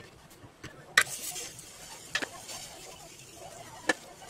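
Cookware being handled: four sharp knocks and clicks, the loudest about a second in and followed by a brief hiss, with a softer one near the end.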